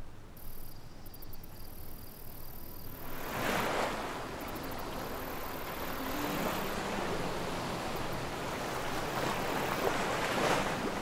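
Small lake waves lapping and washing onto a sandy shore, starting about three seconds in and swelling twice, once soon after it starts and again near the end.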